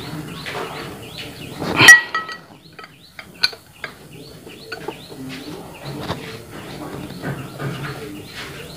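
Ring spanner tightening a small bolt inside a steel belt pulley: one sharp metallic clank with a brief ring about two seconds in, a lighter click a second and a half later, and a few faint ticks of the tool against the metal. Birds chirp in the background.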